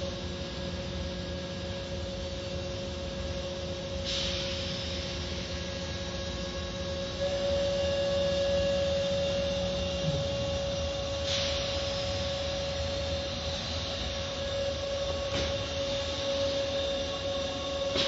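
Automatic car wash machinery heard from inside the car: a steady mechanical hum with a droning tone that gets louder about seven seconds in, and a few brief rushes of spray water hitting the car.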